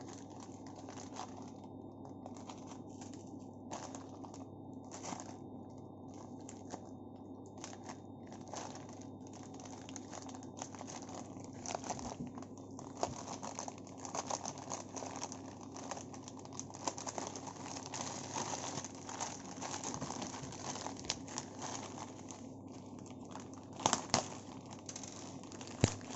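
Plastic packaging being crinkled and torn open by hand, with scattered crackles and two sharp clicks near the end, over a steady low hum.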